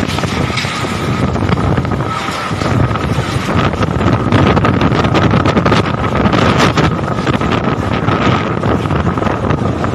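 Strong whirlwind gusts blowing hard against the microphone, louder from about three seconds in, with a thin steady whistle-like tone running through the noise.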